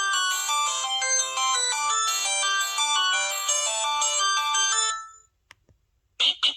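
LG-SH840 mobile phone ringtone: a fast electronic melody of short, bright notes that fades out about five seconds in. After a brief silence and a faint click, the next ringtone starts near the end with a run of sharp, rapid hits.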